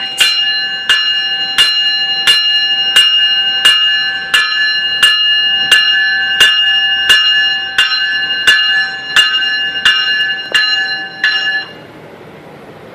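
Locomotive bell ringing steadily with evenly spaced strikes, about three loud strikes every two seconds, stopping abruptly near the end and leaving a low steady rumble.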